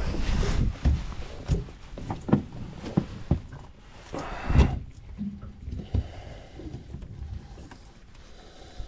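Scattered knocks and scrapes of a live mud crab being handled and tied with string on a boat's deck, with low rumbling near the start.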